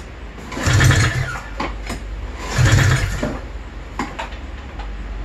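Recoil pull starter on a 1995 Arctic Cat ZR 700 two-stroke twin, pulled twice about two seconds apart, with a few short clicks in between. The engine spins over without firing because it has no spark.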